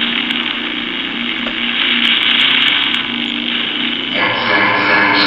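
Spirit box app sweeping radio stations: loud, continuous, choppy static hiss, with a buzzier tone joining about four seconds in.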